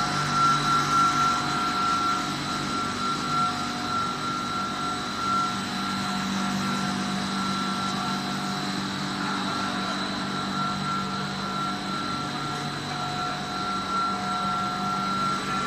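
Industrial machinery of a PVC anti-slip mat extrusion line, the extruder's electric drive motors and gearbox, running with a steady hum and a high-pitched whine on top.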